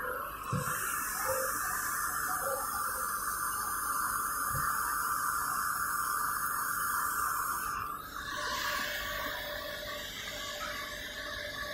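Cotton candy machine running, a steady whirr from its motor and spinning head. A high hiss runs over it and stops sharply about eight seconds in. Two light knocks come in the first half.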